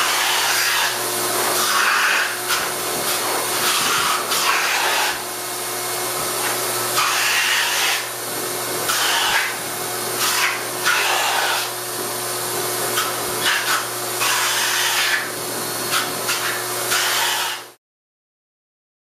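Motor of a hand-held air hose running steadily with a strong rush of air, as the nozzle is pointed at a Lakeland Terrier; it surges louder and softer again and again, then cuts off suddenly near the end.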